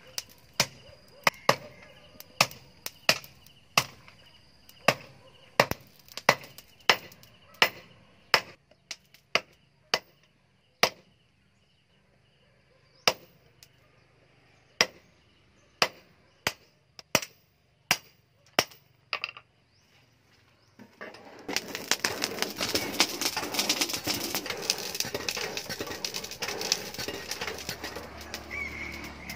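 Hand hammer striking red-hot steel on a steel post anvil, sharp ringing blows about two a second with a short pause partway, as the blade is forged. From about two-thirds of the way through, the blows stop and a steady crackling hiss of the charcoal forge fire takes over.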